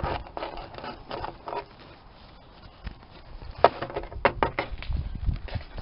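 Close handling noise: rustles and scattered taps as fingers fit a small knit hat onto a plastic toy figurine on a frosty surface, with a cluster of sharp clicks about two-thirds of the way in.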